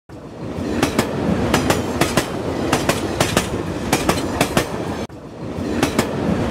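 Train wheels clattering over rail joints: sharp clicks in pairs, roughly one pair every half second or so, over a steady rumble. There is a brief break about five seconds in.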